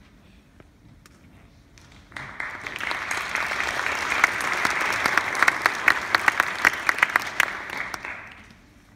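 Audience applauding, starting about two seconds in, building with many sharp individual claps, then dying away near the end.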